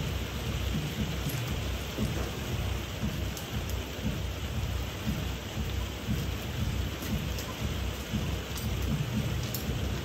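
Propane-fired foundry furnace burner running with a steady roar: a fluttering low rumble under an even hiss.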